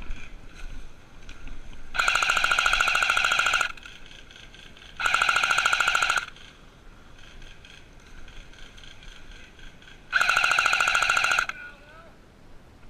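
Airsoft automatic electric gun firing three full-auto bursts, each lasting one to two seconds, at a fast, even rate of fire.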